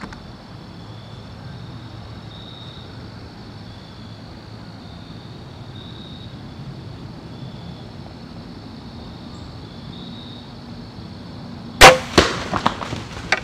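A bow shot at a whitetail buck: one loud sharp crack near the end, followed quickly by a run of smaller snaps and cracks over about a second and a half.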